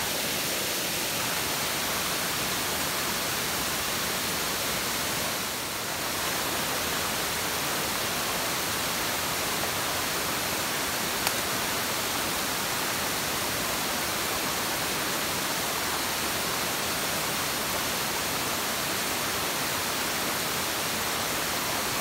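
Steady, even rush of water running over rock slabs on the way up to a forest waterfall.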